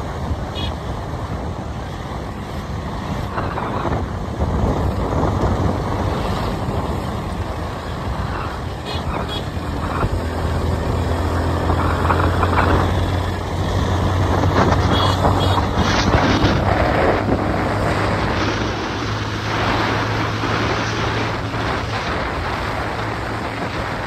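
Motorbike engine running at a steady road speed, a constant low hum, with wind rushing over the microphone.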